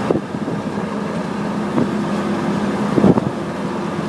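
A car driving at road speed, heard from inside the cabin: a steady road and engine drone with tyre noise, and a couple of bumps from the rough road, the loudest about three seconds in.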